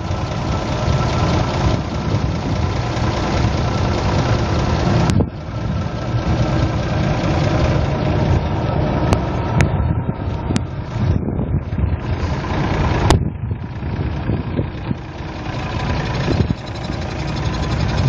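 Engines of cars and lorries idling in a stopped queue of traffic, under a dense rumbling noise of blizzard wind on the microphone.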